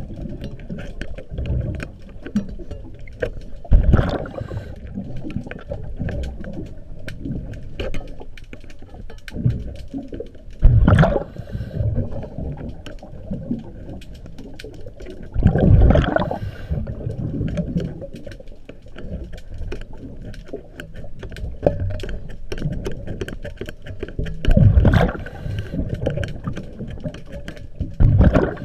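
Underwater scuba breathing: a diver's exhaled bubbles rush out of the regulator in loud bursts every few seconds, with a low rumble and fine crackling between breaths.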